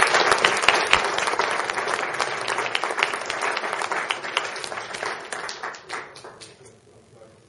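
An audience applauding: many people clapping, loudest at first, then thinning out and dying away over the last couple of seconds.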